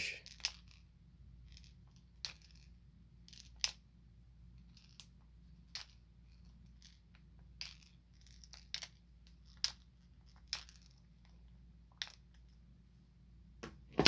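Jointed wooden bluegill lure waggled in the hand, its hinged body segments knocking together in light, irregular clicks, about a dozen in all.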